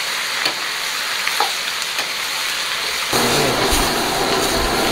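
Shrimp sizzling in hot oil in a wok, a steady hiss with a few light knocks of a ladle. About three seconds in, the low roar of the gas burner under the wok joins the sizzle.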